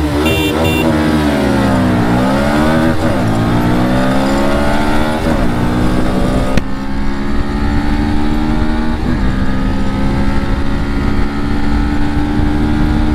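Bajaj Pulsar NS125's single-cylinder engine accelerating hard through the gears: its pitch climbs, then drops at each upshift, several times, under steady wind rush.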